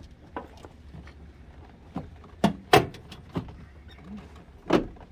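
Plastic door card of a 2004 Astro van being worked loose with a pry bar: about six irregular sharp clicks and knocks, the loudest around two and a half seconds in and again near the end.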